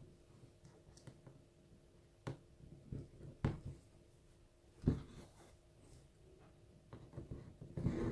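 Quiet handling sounds on taut embroidery fabric: a few scattered soft taps and clicks, then a brief rustle near the end as a hand presses and brushes over the embroidered flower.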